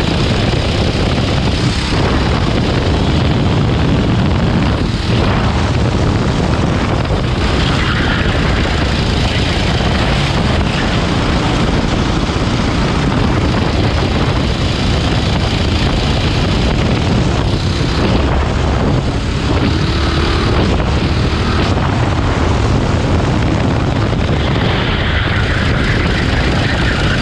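Rental go-kart engine running at racing speed, heard onboard as a loud, steady rush of engine and wind noise.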